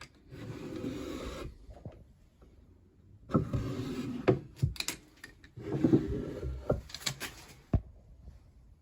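Wooden drawers sliding open and shut in three long strokes, wood rubbing on wood, with sharp knocks as they come to a stop.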